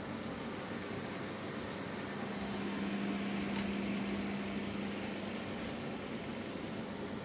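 A steady mechanical hum over fan-like noise. The low hum grows stronger in the middle, and there is a faint click about three and a half seconds in.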